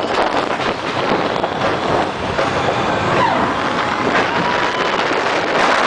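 Steel roller coaster train running on its track, heard from a rider's seat: a loud, steady rush of wind over the microphone mixed with the rumble of the wheels as the train crests and drops into a dive. A thin high tone bends down and then holds briefly about halfway through.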